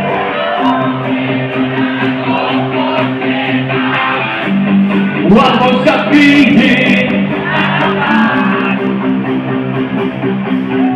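Live rock band playing loudly: a male vocalist singing over electric guitar and drums, heard from within the crowd.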